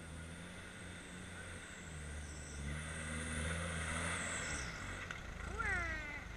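Engine of a modified off-road 4x4 working under load as it climbs a steep muddy slope, the revs rising about two seconds in and easing off after about four seconds, with a high whine rising alongside. Near the end a person calls out briefly with a falling voice.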